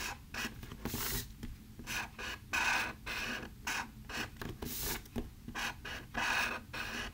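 A Sharpie permanent marker's felt tip scraping across paper in a series of short strokes as a design is traced over.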